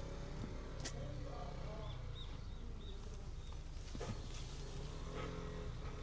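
Steady low rumble, with a short run of faint high chirps about two seconds in.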